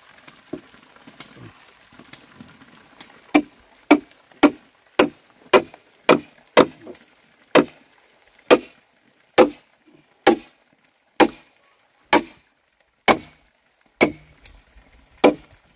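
Repeated sharp blows of a hand tool striking wood, with a short ring to each. There are about sixteen strikes, starting about three seconds in at roughly two a second and slowing to about one a second.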